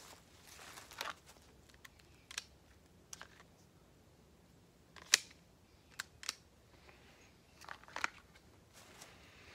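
A few scattered sharp clicks, the loudest about five seconds in, with brief cloth rustling in between: hands pressing buttons on a handheld shot timer and adjusting a shirt over a waistband holster.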